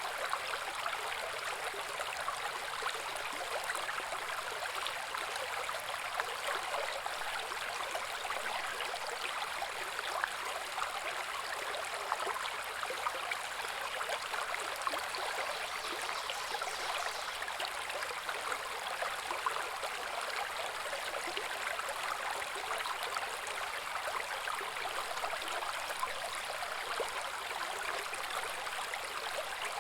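Small woodland brook babbling steadily over stones, a constant mid-to-high rush dotted with fine splashing ticks.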